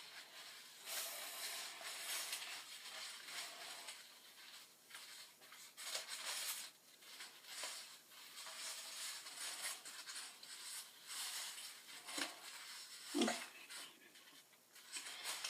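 Faint, irregular rustling and rubbing of hands and hair as a rubber hair tie is wrapped around a ponytail, with one louder brush near the end.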